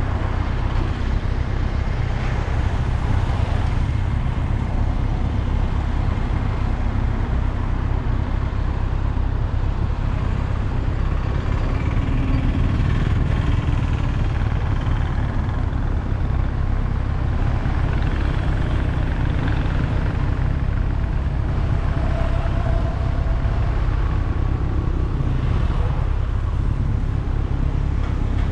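Motorcycle running steadily underway, its engine mixed with a heavy low wind rumble on the microphone.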